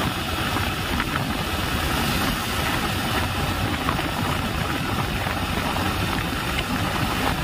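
Hero Splendor Xtec motorcycle riding along a highway: the engine runs steadily under a constant rumble of wind and road noise.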